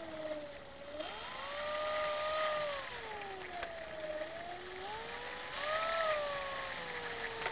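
Electric brushless motor (2836, 750 kV) spinning a four-blade 10x8 propeller on an RC Corsair while it taxis. The whine rises in pitch about a second in, drops back around three seconds, climbs again around five seconds and eases off near the end as the throttle is worked.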